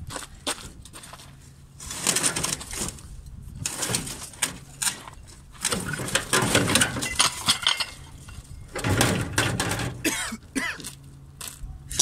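Crunching and clinking of charred debris and burnt metal as someone climbs onto a burnt-out truck cab and rummages inside it, in several irregular noisy bursts.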